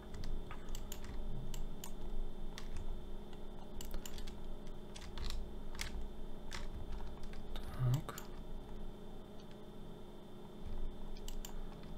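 Irregular clicks of a computer mouse and keyboard while a 3D model is being edited, over a faint steady hum.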